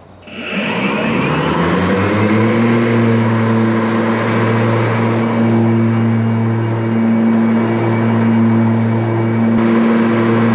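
Ryobi 80-volt zero-turn riding mower's electric mulching blades spinning up: a whine that rises in pitch over about two seconds, then holds steady with a rushing noise as the mower mulches leaves.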